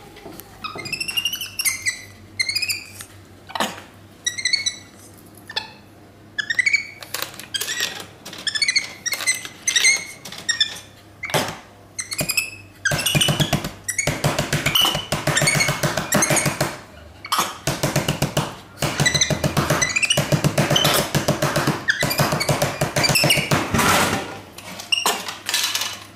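Capuchin monkey calling: a string of short, high, rising squeaky chirps. About halfway through they give way to a louder, denser run of rapid pulsing sound.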